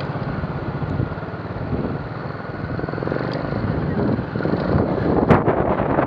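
Trials motorcycle engine running as the bike picks its way over rocks, with strong wind buffeting the microphone.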